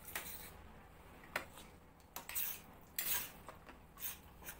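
Metal spoons clinking and scraping against stainless steel plates of broken-wheat porridge as two people scoop and eat, in short irregular clicks.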